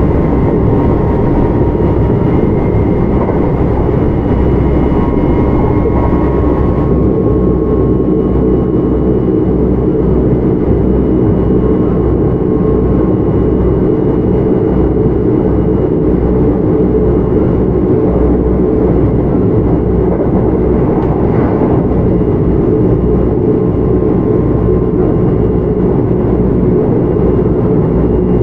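Kintetsu 1031 series electric train (Hitachi GTO-VVVF control) running steadily along the line: a continuous rumble of wheels and running gear with faint steady whine tones over it. The highest hiss drops away about seven seconds in.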